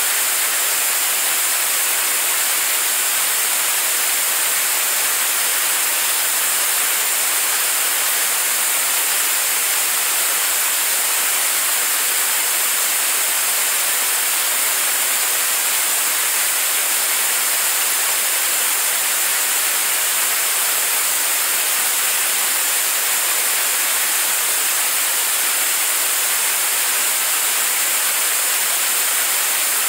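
Staged-combustion liquid-propellant rocket engine firing steadily, mid-way through a 600-second hot-fire test. The noise is even and unbroken, heavy in hiss, with almost no low rumble.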